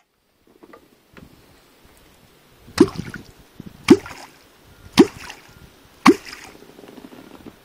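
Wooden catfish clonk struck into the water four times, about a second apart. Each stroke is a sharp smack followed by a deep, hollow plop that drops in pitch. This is clonking, the angler's way of calling wels catfish up to the bait.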